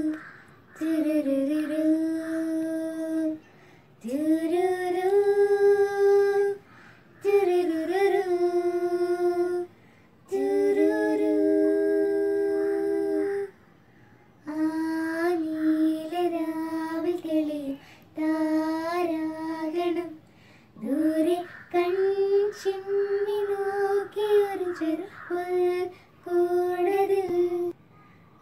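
Young girls singing a song without accompaniment, in short phrases with held notes and brief silences between them.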